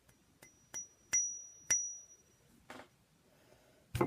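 A few sharp clicks from the Horizon yo-yo being handled, with a high ringing ping that hangs on for about two seconds. A short scrape follows, and a thump right at the end.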